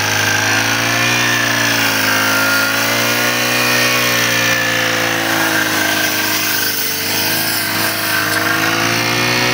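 Backpack petrol brush cutter running steadily as it cuts grass, its engine note rising and falling a little as the head meets the turf.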